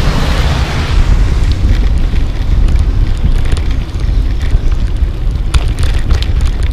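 Wind buffeting the microphone of a camera carried on a moving bicycle: a loud, rough low rumble with scattered ticks. A passing vehicle's hiss fades out within the first second.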